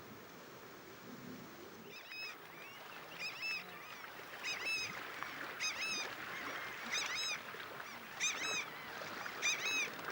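Southern screamers calling: a series of short, honking, pitched calls, about one a second, beginning about two seconds in over a faint outdoor background.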